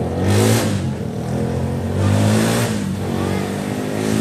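An engine revving, surging twice and settling back to a steady run between the surges.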